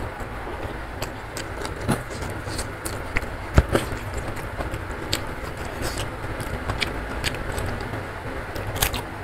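Heavy rain falling steadily, a constant hiss with a low rumble under it, with close-up eating sounds over it: chewing and wet mouth clicks, the sharpest about three and a half seconds in.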